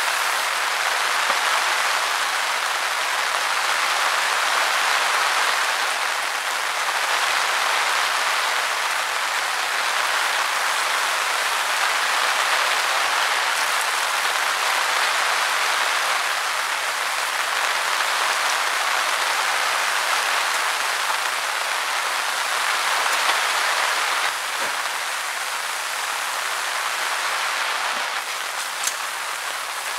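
Steady rain falling, its hiss swelling and easing in waves and dropping off a little about six seconds before the end.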